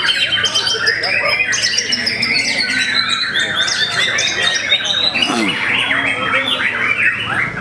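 White-rumped shamas (murai batu) singing at once in a competition round, a dense unbroken stream of overlapping whistles, trills and sharp chirps.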